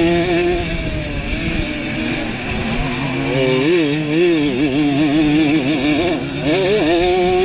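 Simson two-stroke moped engine of a racing pitbike, heard onboard, revving hard under race load on a dirt track. The engine note holds high, sags about a second in, swings quickly up and down from about three to five seconds in as the throttle works over the rough ground, then climbs and holds high again near the end.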